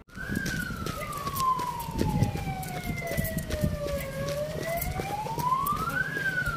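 Ambulance siren wailing slowly. Its pitch falls for about four seconds, climbs back up over the next two, and starts to fall again near the end, over a low background rumble.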